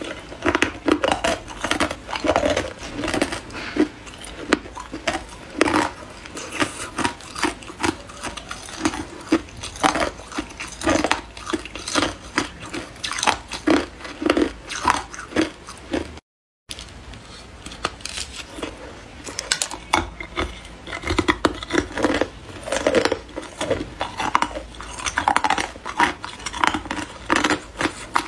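Hard ice being bitten and crunched by teeth: a fast, irregular run of sharp cracks and crunches as pieces are broken off a frozen cluster of ice balls and chewed, with a brief cut to silence about halfway through.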